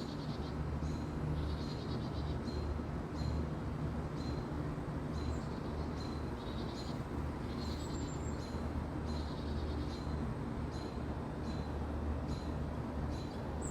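A bird calling over and over, short high calls about two a second, over a steady low rumble.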